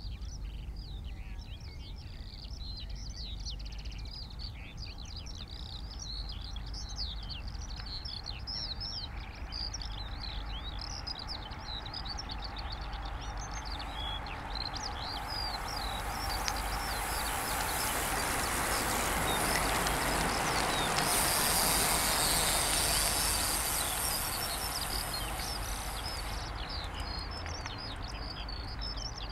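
Small birds chirp and sing throughout over a steady low rumble. About halfway through, a large group of bicycles passes on asphalt: the hiss and whir of their tyres swells up, peaks, and fades away.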